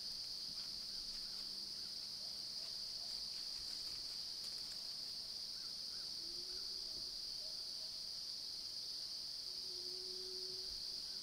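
Steady, high-pitched drone of an insect chorus, with a few faint short calls in the middle and near the end.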